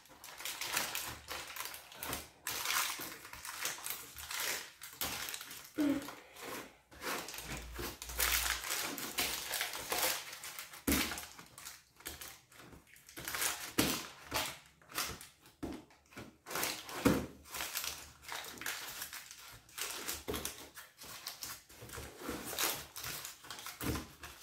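Baking paper crinkling and rustling in irregular crackles as a loaf of bread dough wrapped in it is pressed and folded into a paper-lined loaf tin. There is a sharper crackle about two-thirds of the way through.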